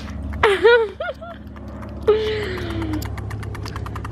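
A couple of short voiced whoops, the second a falling call. Then a toddler's push-handle tricycle rolls over asphalt with a rapid, regular clicking and a low rolling rumble.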